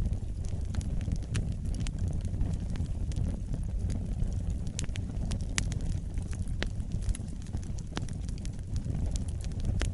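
Wood fire burning in a fireplace: a low, steady rumble of flames with frequent sharp crackles and pops, a few of them louder, about five and a half to six and a half seconds in.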